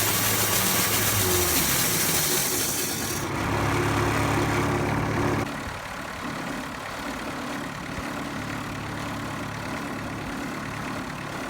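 Engine running, its pitch falling about a second or two in. A loud hiss stops about three seconds in, and about five seconds in the engine drops to a quieter, steady idle.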